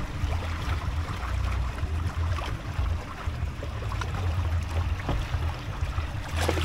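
Low, uneven rumble of wind buffeting the microphone, with a few light clicks and knocks.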